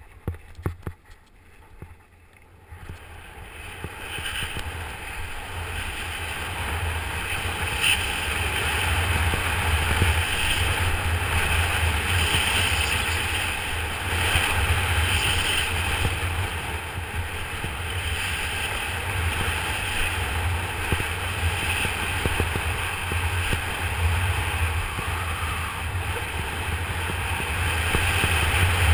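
Skis running fast over groomed corduroy snow: a steady scraping hiss that swells and fades every couple of seconds with the turns, over a low rumble of wind buffeting the camera microphone. It starts with a few clicks, then builds up over the first few seconds as speed picks up.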